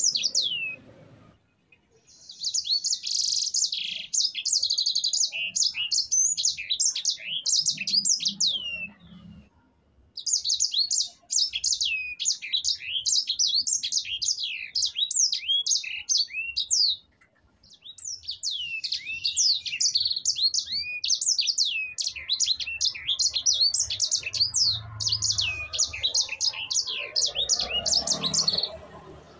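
Sanger finch (yellow-fronted canary) singing long, rapid rolling song phrases of quick high down-sweeping notes, in three long bursts separated by short pauses.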